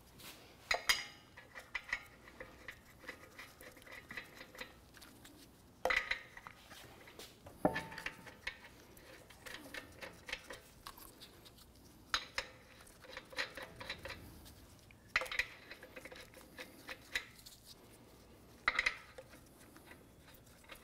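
Lug nuts being started by hand on the wheel studs of a 2016 Ram 1500's aluminum wheel: a sharp metallic clink every few seconds, six in all, as each nut goes on, with light ticking between as the nuts are turned down.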